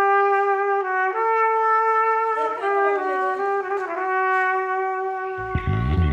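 Background music: a melody of long held notes that step in pitch about once a second, with a low beat coming in near the end.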